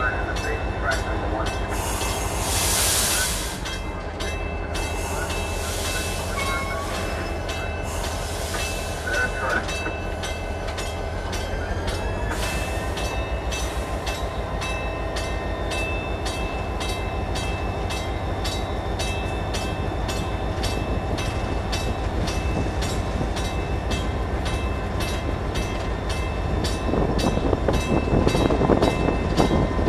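Cab of an EMD SD40-2 diesel-electric locomotive under way: the 16-cylinder two-stroke diesel drones steadily under regular clicking of the wheels over rail joints. A brief hiss comes about two seconds in, and the running noise grows louder near the end.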